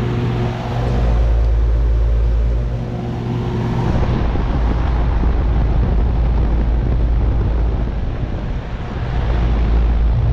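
Bryant Legacy Line central air conditioner's outdoor unit running, with a steady hum from its compressor and the rush of its condenser fan. About four seconds in the hum fades under a louder rushing of air, with low rumbling on the microphone.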